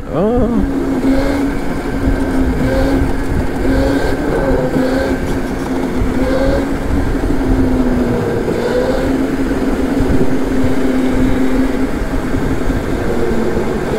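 Go-kart running at speed, heard from the driver's seat: a steady motor tone that wavers a little through the corners, over constant rushing road and wind noise.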